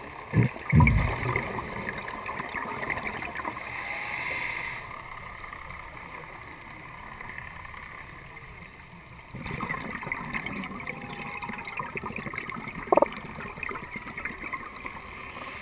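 Scuba breathing heard underwater through a regulator: stretches of bubbling with a brighter hiss around four seconds in, a quieter gap, then more bubbling. Two heavy low thumps come just after the start, and one sharp click near the end.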